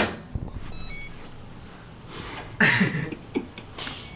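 A sharp knock, then a few short, quick electronic beeps from the hoverboard. About two and a half seconds in comes a brief burst of rustling with a short voice-like sound.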